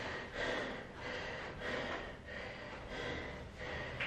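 A man's heavy, rhythmic breathing, panting hard as he recovers between sets of burpees.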